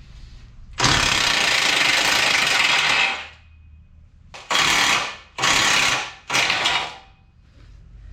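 A power tool run in four bursts, one of about two seconds and then three short ones, as bolts are worked loose.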